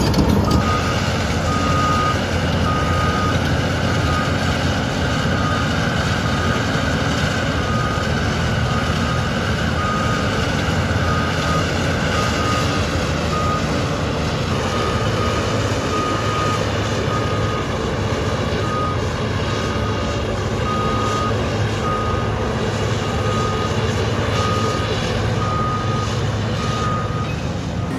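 Heavy diesel machinery running steadily, a Cat 6015 hydraulic excavator at work, with a reversing alarm beeping about once a second over the engine noise.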